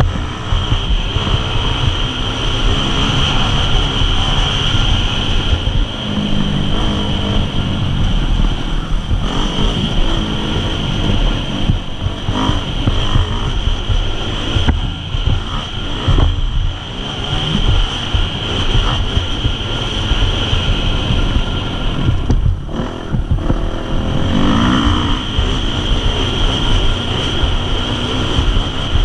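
Husqvarna 250 four-stroke single-cylinder dirt bike engine running under constantly changing throttle as it is ridden over rough ground, heard up close from a helmet-mounted camera.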